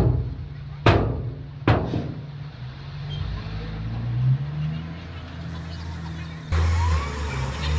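Heavy diesel earthmoving machinery running with a steady low drone, with three sharp bangs in the first two seconds. Near the end the engine drone becomes louder and deeper.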